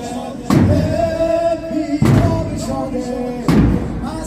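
Zanjir-zani mourning: a male lament singer holds a long note while heavy beats of drum and swung chains land in unison about every second and a half, three times.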